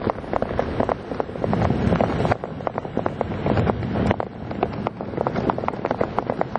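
Wind buffeting the camera microphone during a parachute descent under canopy: a steady rush broken by rapid, irregular crackling flutters.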